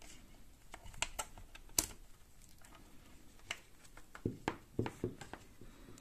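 Light plastic clicks and knocks from a plastic power strip and its coiled cable being handled and turned over in the hands, with a cluster of duller knocks near the end.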